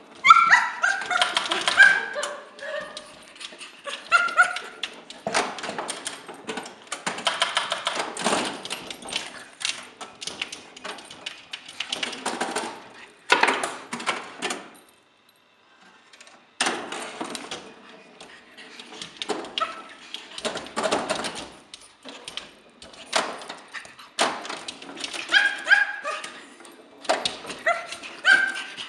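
Petit Brabançon dog barking and yelping in excited bursts over the clacking of a pinball machine's flippers, bumpers and ball. The barking is busiest at the start and near the end, with a brief lull about halfway through.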